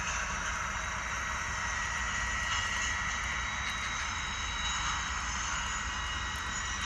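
Railway cars rolling past: a steady rumble and hiss of wheels on rail, with a thin, high, steady squeal of the wheel flanges riding over it that grows a little stronger midway.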